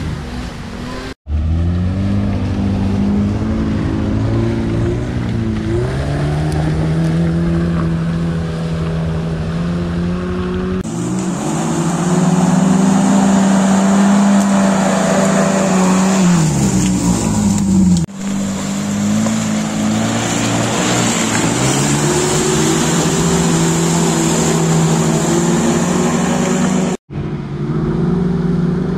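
Off-road 4x4 engines, a Suzuki Vitara among them, labouring and revving in low gear through deep mud, the engine pitch rising and falling as the throttle is worked. The sound comes in several clips that break off suddenly, with the loudest and highest revving in the middle.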